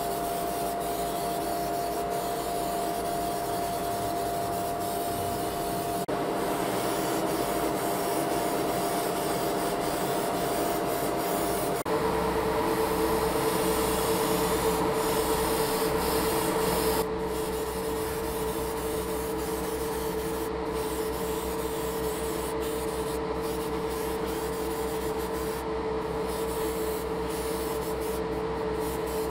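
Airbrush spraying paint with a steady hiss over the constant hum of a motor in a hobby spray booth; the hum's pitch drops at a cut about twelve seconds in.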